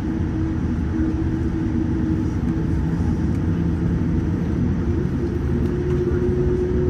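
Cabin noise of a taxiing Boeing 787-9 Dreamliner: a steady low rumble with a hum from the engines at taxi power, the hum stepping up slightly in pitch about five seconds in.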